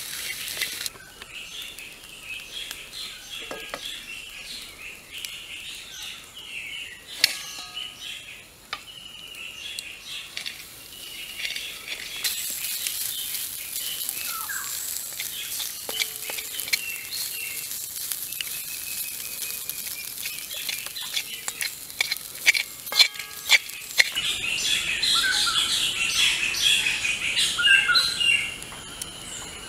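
Wooden stick stirring and scraping chopped greens and scrambled eggs in a metal wok over a wood fire, with the food sizzling and sharp clicks of the stick on the pan. Birds chirp throughout and grow louder and busier near the end.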